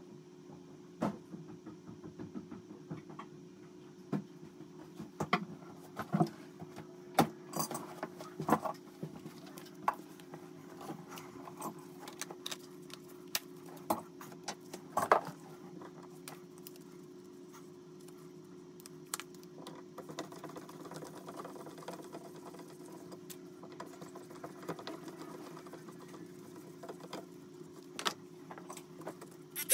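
Scattered clicks and knocks from tools being handled, over a steady low hum.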